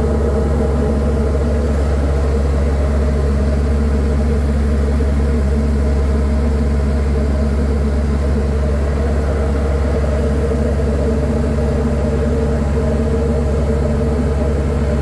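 Diamond DA40 light aircraft's piston engine and propeller running steadily at constant power, heard inside the cockpit as a loud, even drone with a deep low hum.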